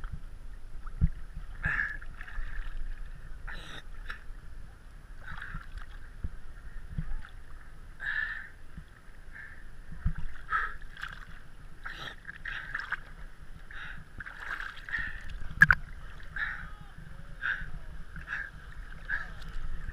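Small waves lapping and slapping against a camera floating at the water's surface, in irregular splashes over a low steady rumble.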